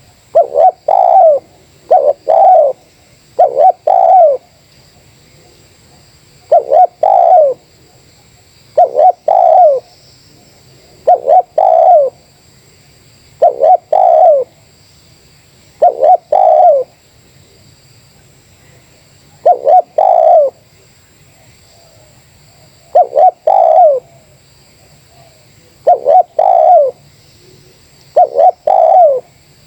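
Spotted dove (terkukur) cooing loudly, repeating its short phrase about a dozen times, one every two to three seconds.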